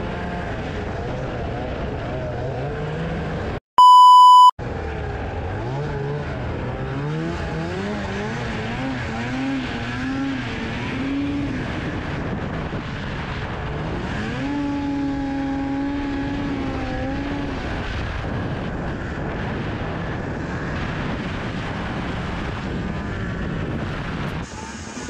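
Snowmobile engine under way, its pitch climbing in steps as it revs up and holding steady for a few seconds near the middle. A loud, pure electronic beep lasting about a second cuts in about four seconds in.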